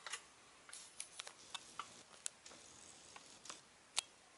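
Faint, scattered small clicks and ticks of objects being handled, about a dozen in all, with the sharpest one near the end.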